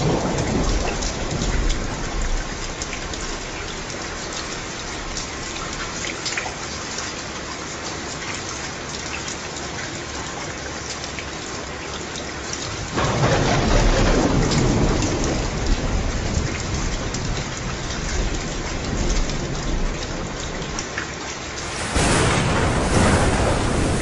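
Steady heavy rain with thunder. A rumble fades out over the first couple of seconds. About halfway through, a loud thunderclap breaks in suddenly and rolls on for several seconds. Near the end, the rain suddenly grows louder again.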